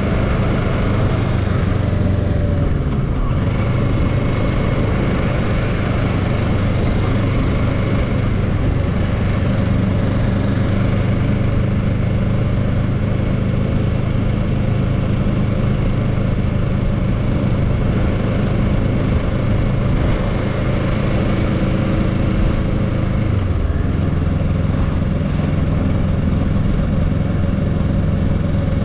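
A 2022 Kawasaki Z650's parallel-twin engine running steadily under way, heard from the rider's seat with wind noise over it. After about twenty-three seconds the engine note drops a step in pitch.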